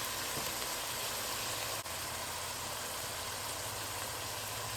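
Steady low hiss and hum of hamburger-meat chili cooking in a pot on the stove.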